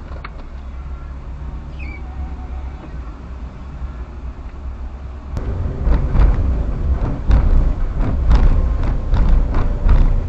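Car driving slowly, heard from inside the cabin: a low steady rumble of engine and tyres. About halfway it turns louder, with a run of irregular thumps and knocks.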